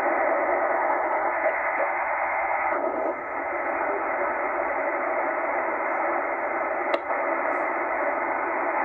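Shortwave receiver in upper-sideband mode giving a steady rush of band noise, narrowed by the sideband filter, as it is tuned up through the 12.86 to 12.87 MHz utility range. There is a short drop in the noise about three seconds in and a sharp click about seven seconds in.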